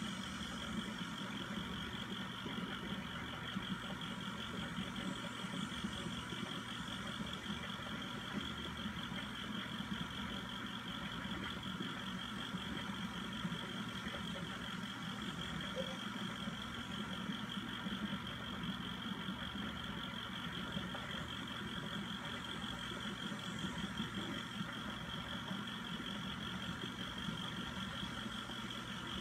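Reef aquarium equipment running: a steady low mechanical hum with a higher, even whir, as from the tank's circulation and return pumps.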